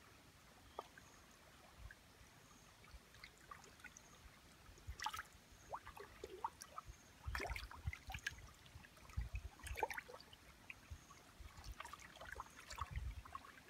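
Faint trickle of shallow muddy water flowing past a bamboo fish trap, with small splashes now and then from about five seconds in as fish move at the surface.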